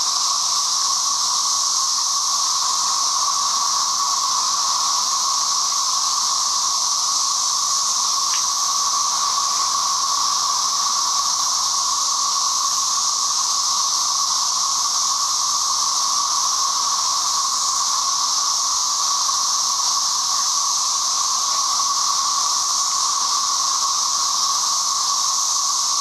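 A dense chorus of 13-year periodical cicadas (Brood XIX), countless males giving their mating calls at once. It makes a loud, unbroken drone, a low hum with a higher hiss layered over it, like electrical motors or pumps running.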